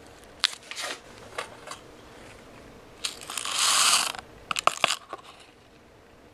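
A paper-foil instant coffee sachet crinkling and being handled, then freeze-dried coffee granules poured from it into a ceramic cup in a rattling rush of about a second, followed by a few sharp taps.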